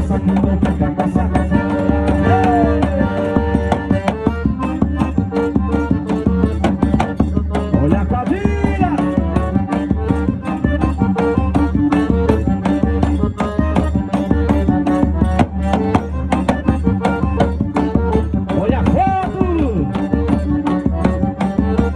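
Forró music from a live band, with a fast, even percussion beat over a pulsing deep bass and sustained melodic notes, and now and then a note bending in pitch.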